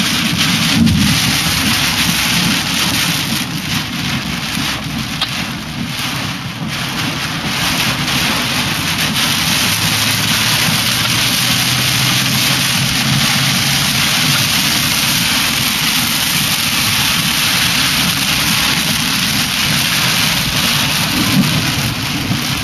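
Heavy rain hitting a car's windshield and roof in a severe thunderstorm, heard from inside the moving car as a steady, dense hiss over a low rumble.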